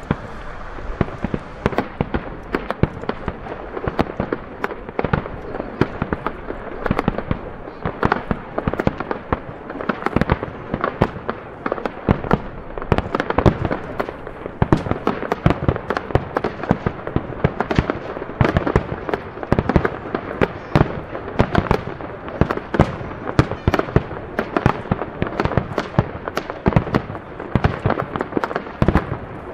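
Dense barrage of aerial firework shells bursting, many sharp bangs a second over a steady crackle with no let-up.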